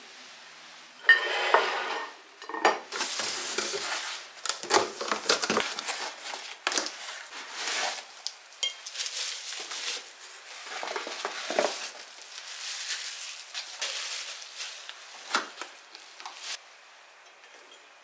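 Plastic film and bubble wrap crinkling and rustling as porcelain tableware is unwrapped by hand, with occasional clinks of ceramic against ceramic. The loudest is a ringing clink about a second in.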